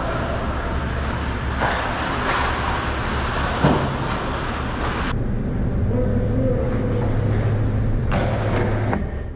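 Ice hockey play: skates scraping the ice in two stretches, the first cutting off suddenly, with a sharp knock of stick or puck about three and a half seconds in, over the rink's steady low hum.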